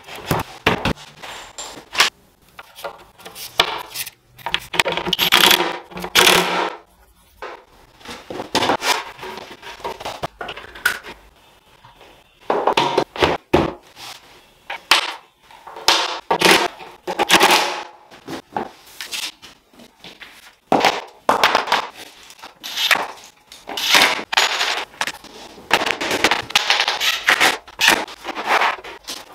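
Rapid knocks, taps and clatter of flat-pack particleboard cabinet panels and their metal fittings being handled and fitted together on a hard floor, in dense clusters of sharp hits.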